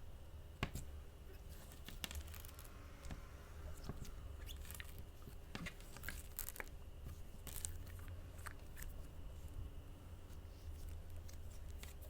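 Ink slime being squished and stretched by hand, giving scattered sticky clicks, crackles and small pops at irregular intervals.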